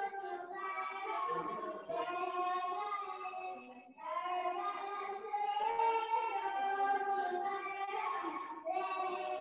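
A high voice singing a melody in long held notes, breaking briefly about four seconds in.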